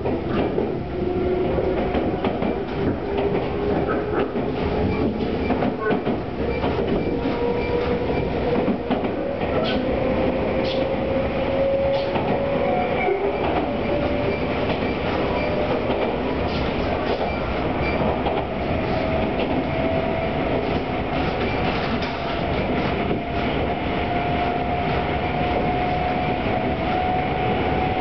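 Tobu 200 series electric train accelerating, heard from the vestibule of a motor car: the traction motors, reused from the 1720 series Deluxe Romancecar, whine in one tone that climbs steadily in pitch, over a steady running rumble with rail-joint clicks.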